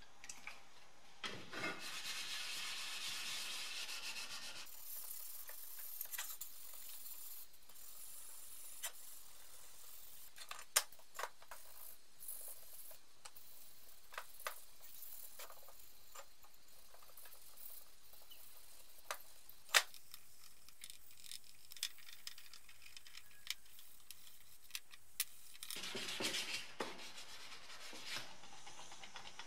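Hand wet-sanding of primer with wet-and-dry paper: faint rubbing and rasping, louder for a few seconds about a second in and again near the end, with scattered light clicks and taps between.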